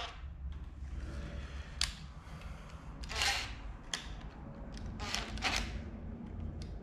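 Cordless driver slowly running in the T30 Torx bolts of a camshaft retainer plate: a low motor hum with a few short, sharp clicks and rattles.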